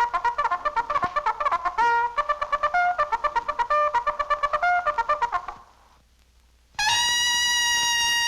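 Cartoon score on trumpet: a fast run of short, rapid notes that stops about five and a half seconds in, a brief pause, then a single long held high note near the end.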